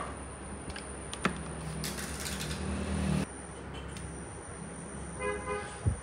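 A transformer soldering gun is clicked on and hums steadily for about two seconds, with a hiss as the solder melts on the wire joint, then cuts off. Later a brief pitched toot sounds, and a low thump comes near the end.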